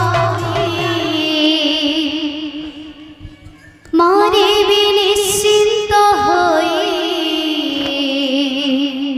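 Devotional kirtan singing: a drum rhythm stops about a second in and the sung line fades, then about four seconds in a woman's voice comes in loud through the microphone, holding long, wavering notes.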